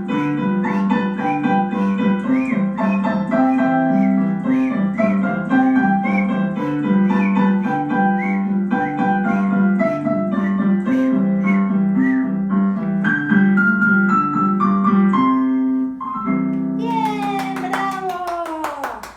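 Piano-like keyboard music with a rhythmic melody over steady low notes; near the end a held chord slides down in a falling glide.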